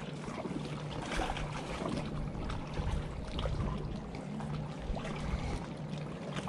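Small waves lapping and splashing against a rocky seawall, over a steady low rumble.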